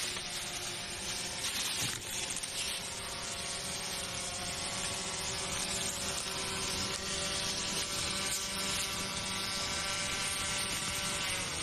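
Steady motor hum with a whine of several pitches over a noisy hiss, its pitch dipping slightly near the end.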